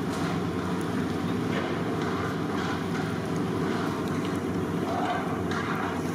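A steady low rumble, with a few faint knocks and scrapes of metal ladles against large metal cooking pots.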